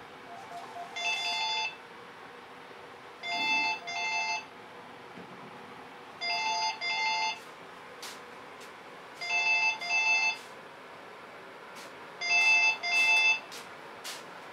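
Cordless telephone ringing with an electronic double ring: five rings about three seconds apart, each a pair of short trills, getting louder toward the end.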